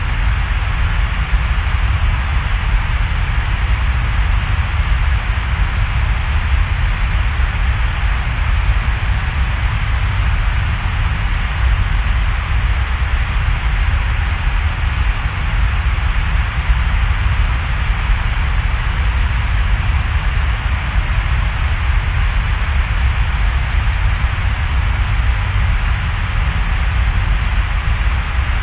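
Steady, unchanging rushing noise, strongest in a low rumble, with no music or speech.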